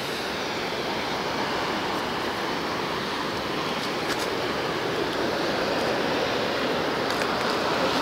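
Steady rushing roar of a tall waterfall falling into the gorge, an even noise that neither rises nor falls.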